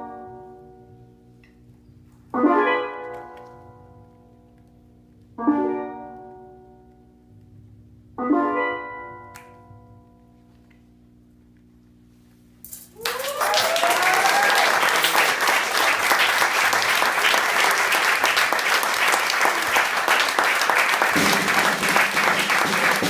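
Steel pan and band strike three closing chords about three seconds apart, each ringing out and fading. About halfway through, the audience breaks into sustained applause, with a rising whoop at its start.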